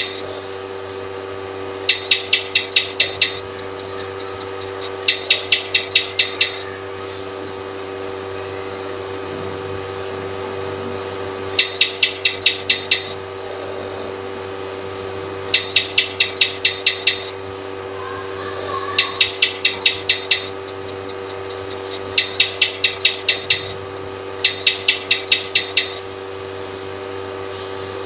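A lizard calling in bursts of six or seven sharp clicking chirps, about five a second, repeated every few seconds over a steady background hum.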